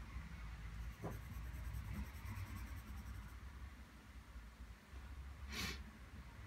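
Faint scratching of a pencil on drawing paper, then one short, sharp hiss about five and a half seconds in.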